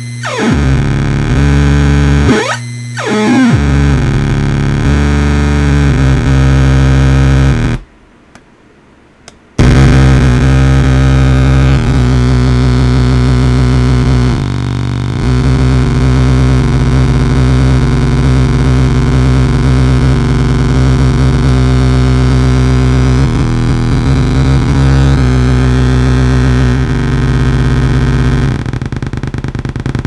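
Homemade 555-timer and 4093-chip tone generator putting out a loud, harsh electronic drone of stacked buzzing tones and noise. Its pitch sweeps down and back up twice in the first three seconds. About eight seconds in it cuts out for a second and a half, then comes back as a dense, steady drone.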